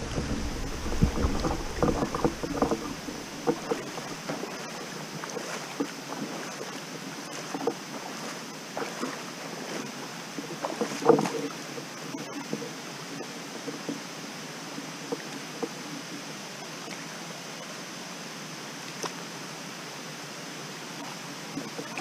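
Steady rush of water flowing over the limestone cascades and pools of a waterfall. A few short knocks and splashes sound in the first few seconds, and a louder one comes about eleven seconds in.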